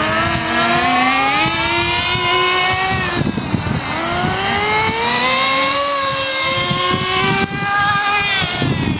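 Nitro RC car engines, small two-stroke glow engines, running at high revs as the cars accelerate: the pitch climbs for about three seconds, drops as the throttle comes off, climbs again, drops once more about seven seconds in, and starts rising again near the end.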